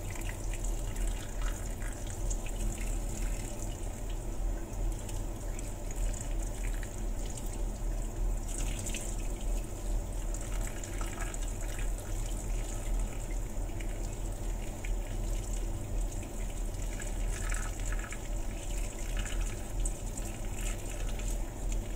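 Kitchen tap running in a steady stream into a stainless steel sink, splashing as gloved hands rinse and squeeze boiled dried shark fin under it.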